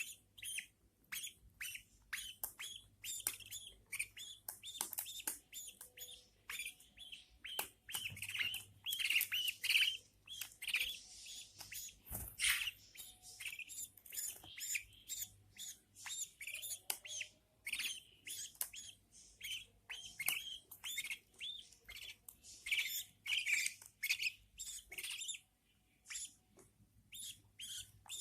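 Budgerigars chirping in a quick, unbroken run of short, high calls, several a second.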